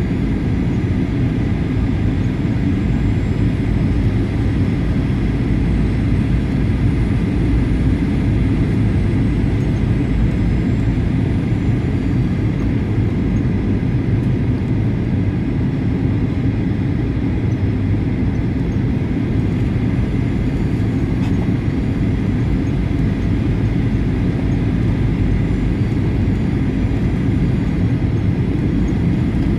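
Steady cabin noise of a Boeing 737-800 on final approach: the airliner's CFM56 engines and the rushing air make a constant, mostly low rumble, with a faint steady whine above it.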